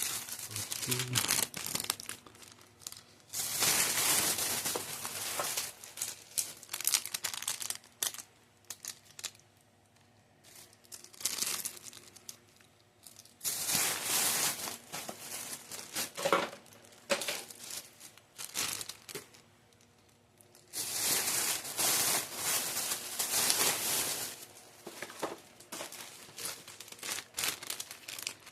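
Plastic snack wrappers crinkling and rustling as they are handled, flattened and sorted, in several spells with quieter pauses between.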